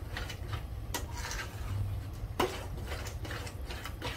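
Spatula stirring and scraping thick pav bhaji in a steel pot, with short knocks against the pot, the sharpest about two and a half seconds in, over a steady low hum.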